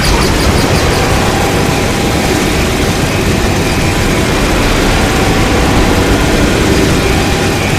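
Loud, steady rumbling noise from a made-up giant-monster sound effect, starting abruptly and holding at an even level.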